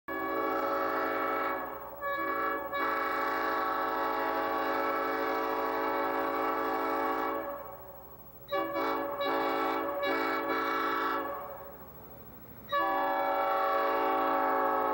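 Multi-chime train air horn sounding a chord in several long blasts of a few seconds each, with brief breaks between them.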